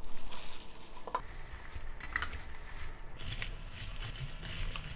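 Hands tossing seasoned skate sashimi, julienned vegetables and water dropwort in a large stainless steel bowl: irregular wet squishing and rustling, with a few light clicks.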